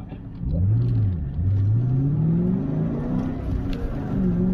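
1999 Ford Mustang SVT Cobra's 4.6-litre DOHC V8 launching hard from a standstill, heard inside the cabin. The engine note climbs, dips about a second in, climbs again, then dips near three seconds and levels off as the car gets under way.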